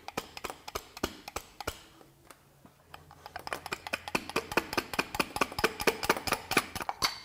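A soft-faced mallet tapping on the metal housing of a Sunex pneumatic impact wrench to drive out the hammer mechanism. Scattered handling clicks come first, then from about three seconds in a steady run of light taps at about five a second.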